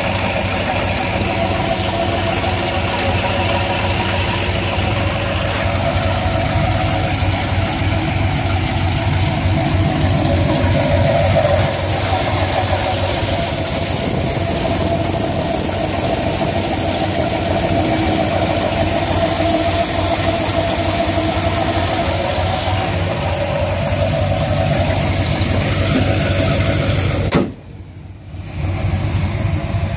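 Modified 5.3-litre V8 of a 2008 Chevrolet Silverado, with an EPS 227/230 camshaft and a FAST LSXRT 102 intake, idling steadily. The sound drops out for about a second near the end, then the idle resumes.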